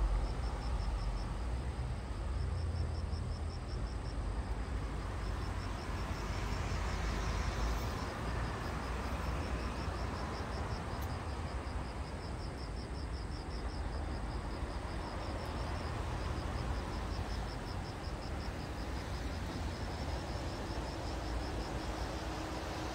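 Insects chirping in high-pitched, rapidly pulsed trills that repeat in bursts of about a second, over a steady low rumble and hiss.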